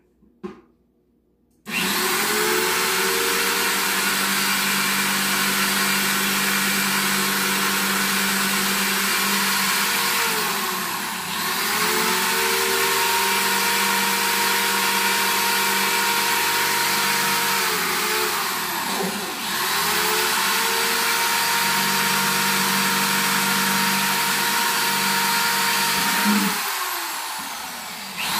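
Electric drill boring through the bottom of a plastic plant pot: the motor winds up and runs steadily, slowing briefly and speeding up again twice, then winds down near the end and starts again.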